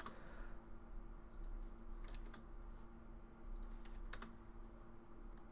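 Faint, scattered clicks of a computer keyboard and mouse, a few taps in close pairs, over a steady low electrical hum.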